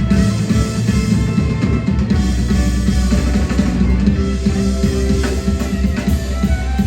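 Live rock band playing an instrumental passage: drum kit, bass and guitar, with no singing.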